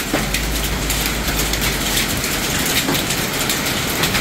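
Heavy rain pouring down in a hailstorm, with many sharp clicks of hailstones striking hard surfaces. A low rumble sits under it for about the first two seconds.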